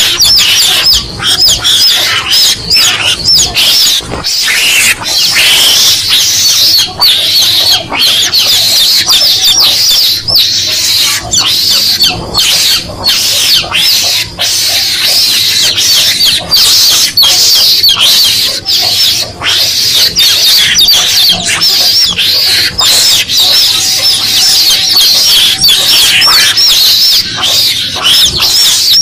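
Chicks peeping in distress: a dense, unbroken run of loud high-pitched cheeps, used as a lure call for mongooses.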